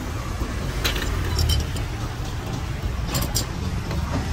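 Wire fish-grilling baskets clinking against the steel grill as they are handled: a few sharp metal clinks about a second in, around a second and a half, and again near three seconds. Under them runs a steady low rumble of street traffic.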